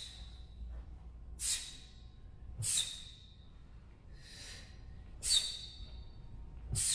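Sharp, hissing exhalations from a taekwondo performer, one forced out with each technique of the pattern: four crisp bursts and one softer one, about a second or so apart, with the snap of the uniform.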